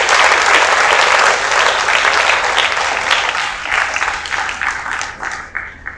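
Audience applauding, loudest at first and thinning out, dying away near the end.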